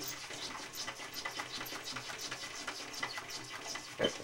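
A cat's claws and paws scratching and tapping rapidly against window glass, several quick scrapes a second, with a louder thump near the end as a paw strikes the pane.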